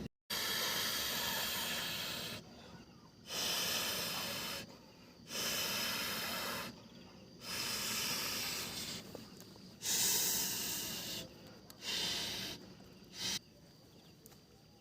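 Slow, heavy breathing close to the microphone: about six long breaths in a steady rhythm, each a loud hiss of air, the last ones shorter and weaker.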